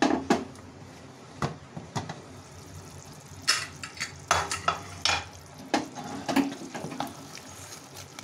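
Aluminium pressure cooker being opened, its lid clanking as it is handled, then a ladle stirring through the cooked bottle-gourd and potato curry, knocking and scraping against the pot in irregular clanks.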